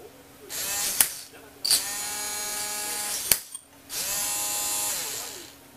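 A toy robot arm's small geared DC motors whirring in three runs of a second or more. Each run rises in pitch as it starts and drops as it stops, with sharp clicks between runs and a gear-rattling whine.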